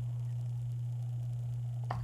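A steady low hum runs throughout, with a single sharp click near the end.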